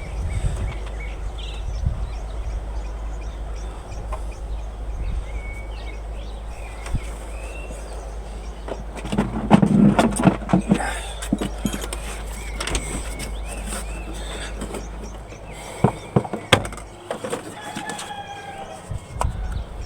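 Birds calling, with a longer call of several stacked pitches near the end, and a cluster of knocks and clicks about halfway through.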